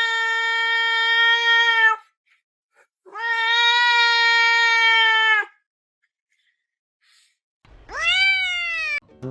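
A cat meowing in three long, drawn-out calls: the first two held at a steady pitch for about two seconds each, then a shorter one near the end that rises and falls.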